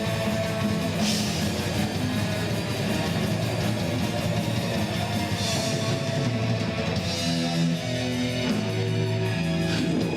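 Instrumental rock music: distorted electric guitars with drums and cymbal crashes, no vocals.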